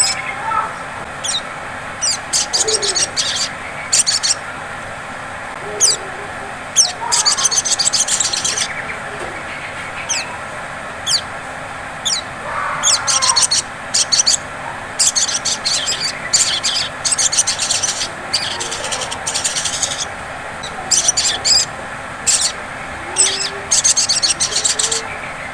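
Sogon (sogok ontong) giving its 'ngleper' call: bursts of very high, rapid trilled chattering with sharp single chips between them, repeating throughout. It is a call used as a lure to set other sogon calling.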